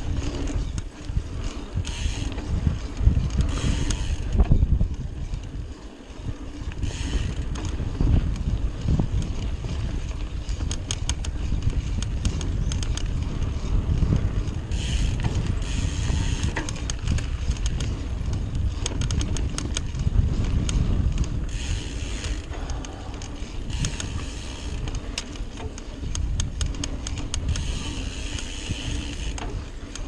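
Trek Fuel EX full-suspension mountain bike riding a dirt singletrack: tyres rolling on dirt with constant wind rumble on the microphone, and the drivetrain and frame rattling and clicking over bumps. Stretches of higher ticking and hiss come and go.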